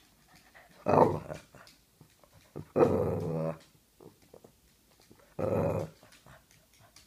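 Boston terrier giving three short growly barks, the middle one drawn out longest, demanding that the ball be thrown.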